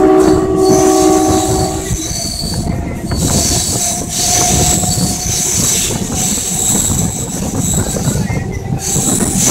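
A train horn sounds for about the first two seconds, then the running noise of a moving passenger train continues: wheels rumbling and clattering on the rails, with a high-pitched wheel squeal through much of it.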